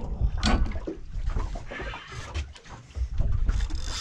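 Handling noise as an angler fights a heavy fish on rod and reel from a boat: knocks and a rumble, with a brief hiss about two seconds in and a louder hiss building near the end.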